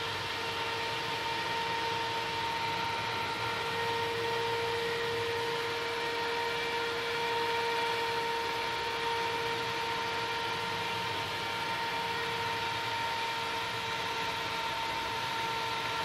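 Small computer CPU fan running steadily, a constant whirring hiss of moving air with a steady whine over it.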